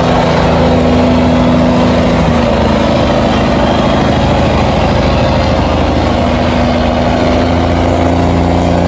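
A boat engine running steadily over the churning rush of water pouring through an opened sluice gate; the engine's pitch shifts slightly a couple of times.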